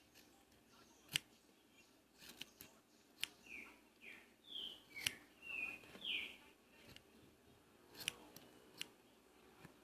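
Scissors cutting a car-wash sponge into pieces: faint, scattered sharp snips, with a run of short squeaky sounds in the middle.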